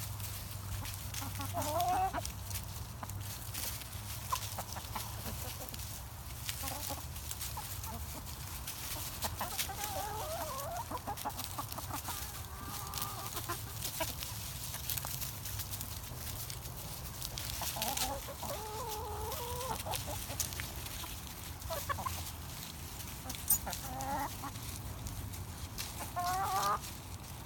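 Backyard chickens clucking now and then while they feed, over a steady scatter of light ticks and taps.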